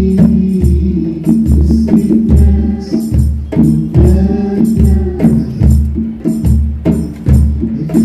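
Music with a steady bass beat, a little more than one beat a second, and light percussion strokes on top.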